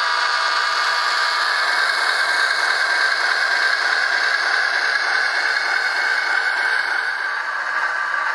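Bachmann HO scale ALCO S4 model's Soundtraxx sound decoder playing the diesel engine sound of an ALCO 539T prime mover through the model's small speaker: a steady engine sound with a whir and little low end.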